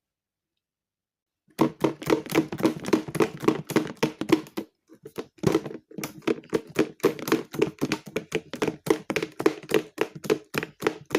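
Rapid, irregular knocking and rattling of small toys tumbling in a washing machine drum, starting about a second and a half in, with a brief pause around the middle.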